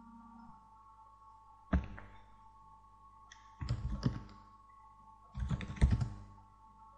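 A single sharp click, then two short bursts of rapid keystrokes on a computer keyboard about two seconds apart: a username and then a password being typed at a login prompt. A faint steady hum lies underneath.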